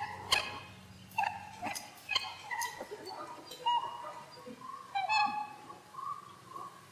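A string of short squeaks and chirps, like small-animal calls, with sharp clicks scattered among them.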